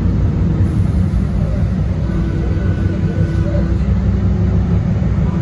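DART light rail train running: a steady low rumble, with a faint steady hum for a couple of seconds midway.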